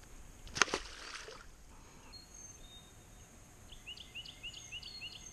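A small largemouth bass tossed back lands in the pond with a sharp splash about half a second in. Near the end a bird sings a quick run of about seven short rising notes.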